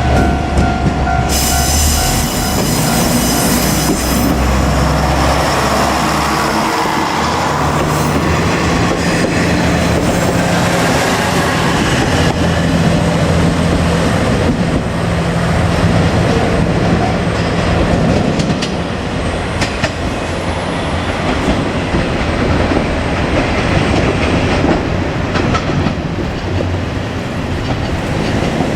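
JR Kyushu KiHa 47 diesel railcar running on the line: a steady diesel engine note and rumbling wheels with clickety-clack over the rail joints and some wheel squeal. A two-tone level-crossing bell cuts off about a second in.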